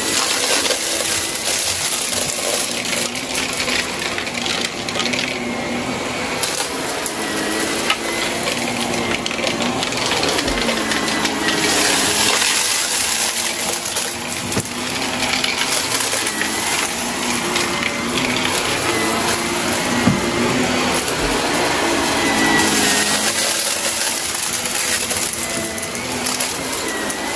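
Shark upright vacuum cleaner running over carpet, its motor hum wavering in pitch as it is pushed back and forth. Over it comes a steady crackle and rattle of small pieces of debris being sucked up.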